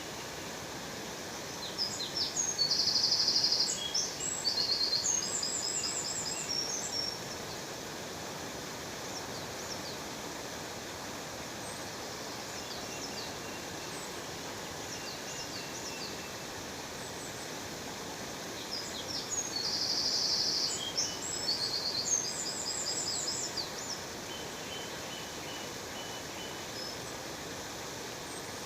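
Waterfall rushing steadily, with a songbird singing two bouts of rapid high trills and chirps, one a couple of seconds in and a matching one about two-thirds of the way through.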